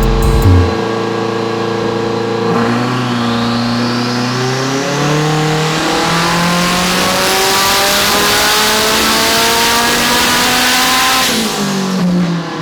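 Turbocharged race car accelerating hard at full throttle, its engine note climbing in steps with a high whistle rising alongside, then letting off near the end.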